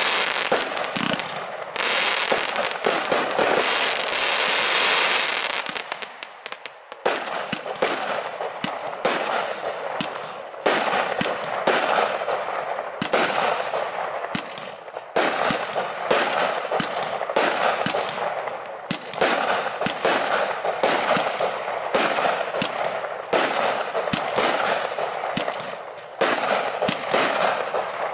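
Lesli Golden Blackhole, a 133-shot 30 mm compound firework battery, firing: a continuous stream of shots and bursting stars in quick succession. It thins out briefly about six seconds in, then surges again with fresh loud volleys every few seconds.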